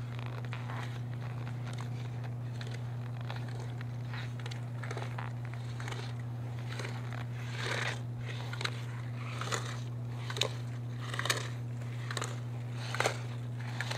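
Slalom skis scraping and hissing on hard snow at each turn, about one swish a second from around the middle on, over a steady low hum.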